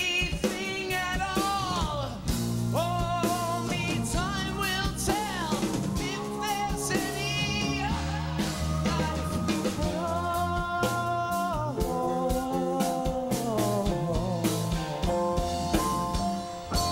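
Live progressive rock band playing: a lead vocal sung with vibrato over drum kit, bass and keyboards, with some long held notes partway through.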